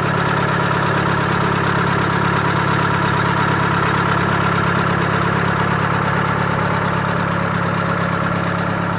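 An engine idling steadily with an even, unchanging hum.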